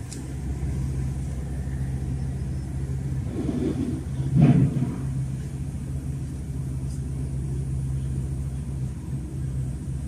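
A steady low hum on one pitch over a rumbling drone, the kind of unexplained sound filmed and shared as a mysterious noise from the sky. A brief louder whoosh swells and fades about four and a half seconds in.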